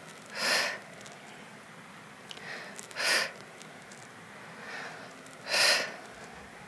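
A woman's sharp, loud breaths under exertion, three of them about two and a half seconds apart, one with each repetition, with fainter breaths in between.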